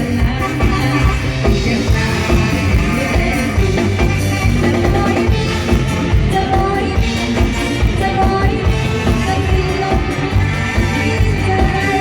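A song: a voice singing over a full band with a steady beat.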